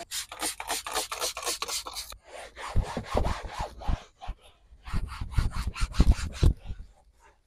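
A hand scrub pad rubbing back and forth over carpet in quick strokes, about four to five a second, in several runs with short pauses, as cleaner sprayed from a trigger bottle is worked into the carpet.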